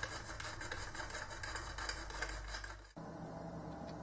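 Rustling, clicking handling noise of a small metal part turned over in the hands close to the microphone, over a low hum. About three seconds in it cuts off abruptly to quiet room tone with a faint steady hum.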